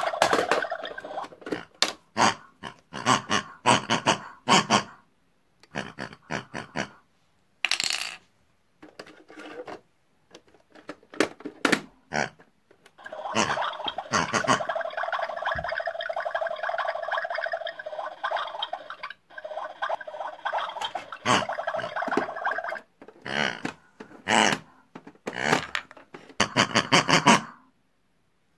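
Squeaky, wordless voices of pig puppet characters, in short bursts and one longer stretch in the middle, mixed with clicks and clatter of plastic toy kitchen pieces and mugs being handled.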